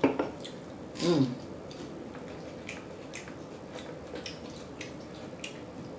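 Close-up wet chewing and lip-smacking of a mouth eating a taco: a run of short, moist clicks and squelches, with a brief falling "mm"-like vocal sound about a second in.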